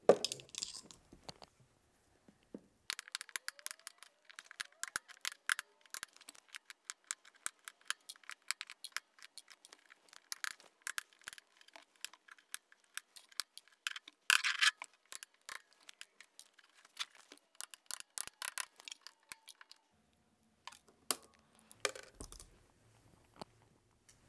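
Upholstery fabric on a recliner's wooden arm frame being pried and pulled loose with pliers: a long, irregular run of small sharp clicks and snaps, with a louder burst about two-thirds of the way through and a few knocks near the end.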